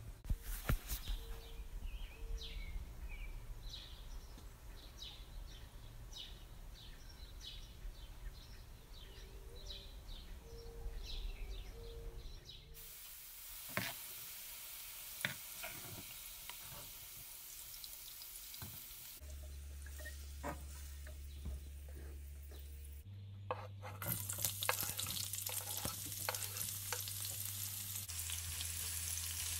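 Julienned carrots sizzling in oil in a nonstick frying pan as they are stirred, with a few sharp clicks of the metal spatula and slotted spoon against the pan. The sizzle grows brighter about halfway through, and near the end sliced onions are frying in the hot oil.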